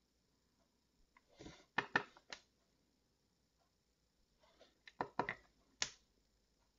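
Faint taps and clicks of a ball-tipped dotting stylus touching down on cardstock to place small ink dots, in a few quick strokes about a second and a half in and again around five seconds in.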